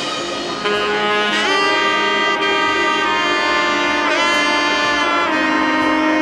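Background music: a lead instrument plays long held notes with a wavering pitch over sustained accompaniment.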